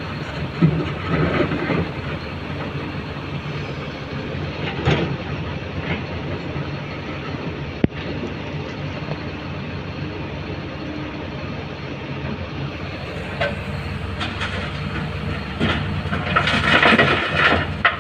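Heavy dump truck's diesel engine running steadily as it drives over a rough dirt haul road, heard from inside the cab, with the body and cab rattling. The noise gets louder for a couple of seconds near the end.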